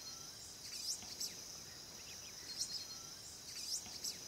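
Rainforest ambience: a steady high-pitched insect drone, with a few short bird chirps over it.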